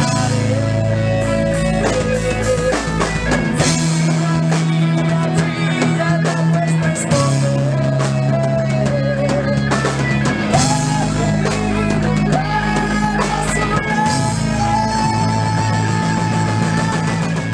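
Rock band playing in a rehearsal room: drum kit with frequent cymbal hits, held bass notes, guitar, and a wavering melody line over them.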